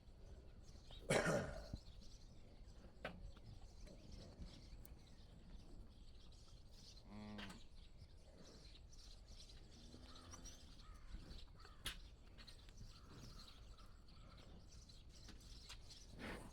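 A few short calls from cattle over quiet outdoor background, the loudest about a second in and two fainter ones near the middle. Faint bird chirps are also in the background.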